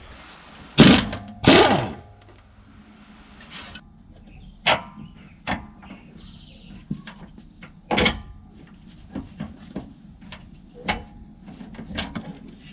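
Pneumatic impact wrench hammering on a rear air strut bolt in two short bursts, about a second in and half a second later, to break it loose. Then scattered metal knocks and clicks as the strut and tools are handled.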